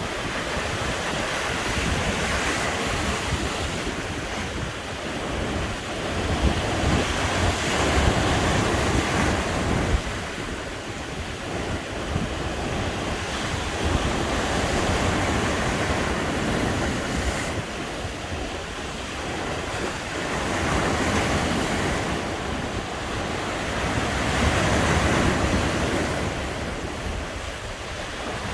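Sea waves breaking and washing on a beach, the surf rising and falling in swells every few seconds.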